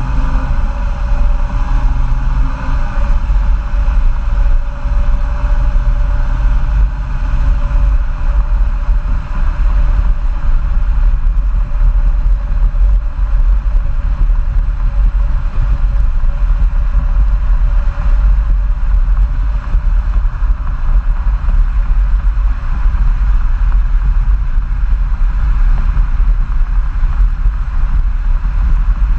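Tuned, DPF- and EGR-deleted 3.0 L V6 turbodiesel of a 2015 Jeep Grand Cherokee EcoDiesel heard through its exhaust while driving, with a heavy wind rumble on the microphone. The engine's tone is clearest for the first several seconds, then settles into a steady cruising drone mixed with road noise.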